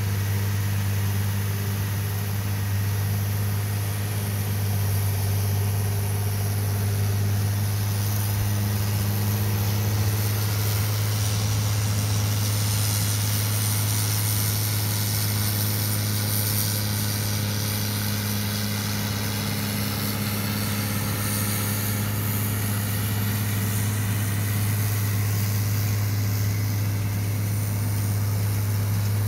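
Farmall 1066 tractor's six-cylinder turbo-diesel engine running steadily as it pulls a rotary mower, a constant low drone.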